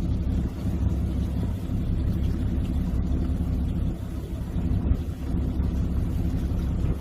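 Steady low rumble of a fishing boat's engine running while the boat sits on the fishing ground.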